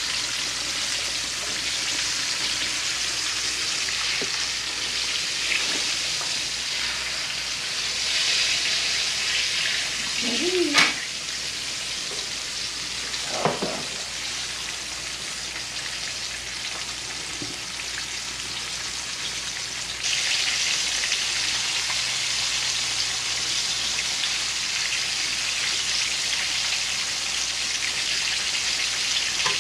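Flour-dredged chicken shallow-frying in a skillet of oil: a steady sizzle that turns suddenly louder about two-thirds of the way through, with a brief knock near the middle.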